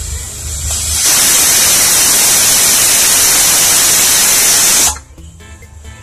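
Senorita aluminium pressure cooker whistling: the weight on the vent lifts and steam hisses out loudly for about four seconds, starting about a second in, then cuts off abruptly as the weight drops back. It is one of the four whistles counted to pressure-cook the taro.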